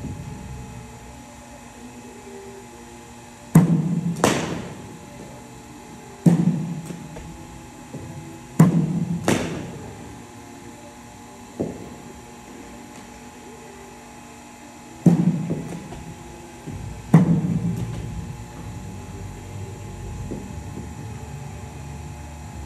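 Kashmir willow cricket bat striking balls: a series of sharp knocks, several coming in pairs less than a second apart, each followed by a short echoing ring.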